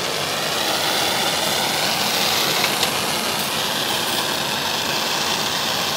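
Oxy-acetylene welding torch burning with a steady hissing flame, set lively for welding black steel.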